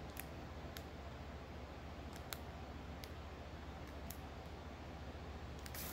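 Faint, scattered clicks and light crinkles of a cellophane-wrapped notepad being handled, over a low steady room hum, with the clicks coming thicker near the end.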